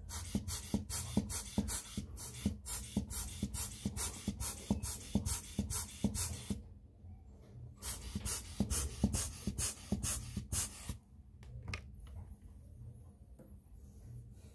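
Rhythmic scratchy strokes of a hand working right beside the microphone, about three a second. They run for about six seconds, stop briefly, run again for about three seconds, and end with a few single clicks.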